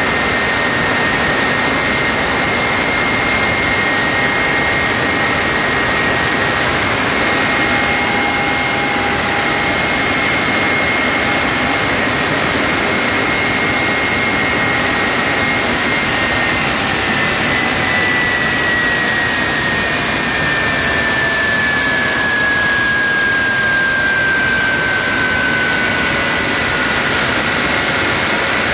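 Rolls-Royce/Snecma Olympus 593 turbojet running on a ground test rig: a loud, steady jet rush with a high whine on top. In the last ten seconds or so the whine slowly falls in pitch.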